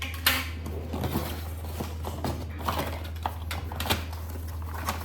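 Packaging being handled while unpacking a vacuum cleaner: rustling and crinkling with scattered clicks and knocks, the sharpest just after the start, over a steady low hum.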